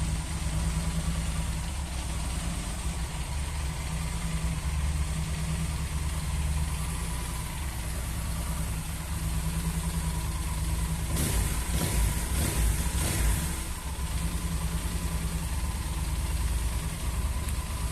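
Motorcycle engine idling steadily, with a short cluster of sharp knocks about two-thirds of the way through.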